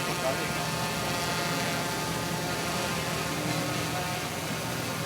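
A steady low mechanical hum holding one constant pitch, without a break.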